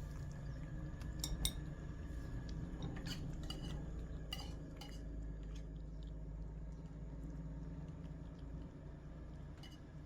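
A cat eating from a food dish: a scattering of short, sharp clinks of food and dish, bunched in the first five seconds with one more near the end, over a steady low rumble.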